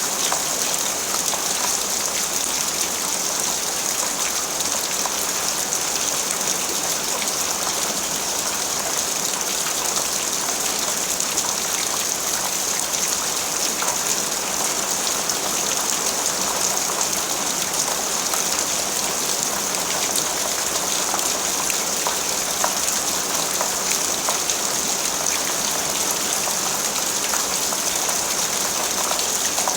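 Steady rain falling, a dense, even hiss of many small drop hits with no letup.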